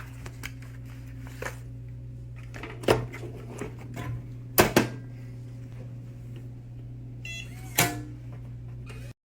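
A small metal pistol safe being handled: sharp knocks and clicks, the loudest at about three seconds in, a close pair near the middle, and one near the end. A quick run of short electronic beeps comes just past seven seconds, with a steady low hum underneath.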